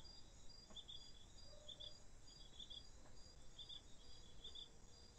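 Near silence with faint insects chirping: short high chirps at irregular spacing over a fainter, evenly pulsing high tone.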